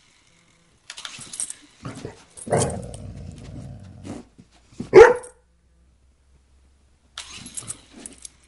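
A dog growls for over a second, then gives one loud bark about five seconds in, objecting to a toy remote-control helicopter.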